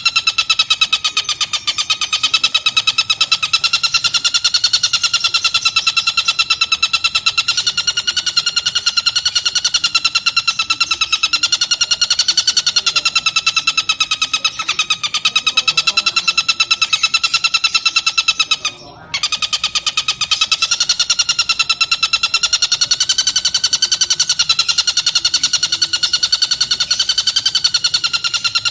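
Tengkek buto (kingfisher) calling in one long, very fast rattling trill on a steady, slightly wavering pitch, broken by a single short pause about two-thirds of the way through.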